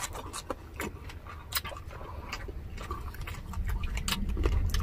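Close-miked eating: crunchy chewing and handling of crisp food, heard as many scattered, irregular sharp clicks and crackles.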